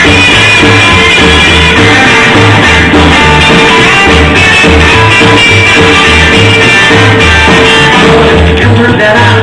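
Rockabilly band playing live, an instrumental break with no singing: guitar over a steady, regular bass line.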